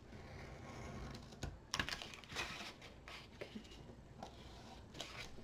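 Faint scattered ticks and scratches of an X-Acto craft knife working against paper and card, with a few sharper clicks about one and a half to two and a half seconds in and another near the end.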